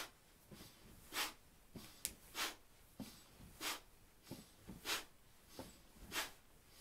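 Sharp, forceful breaths through the nose, one about every second and a quarter in a steady rhythm, as a person jogs in place with high knees and punches, breathing in time with each punch. Soft low thumps fall between the breaths as the feet land.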